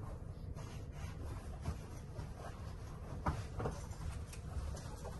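Bed sheet rubbing and rustling as it is tucked under a mattress, with a few soft knocks, over a steady low hum.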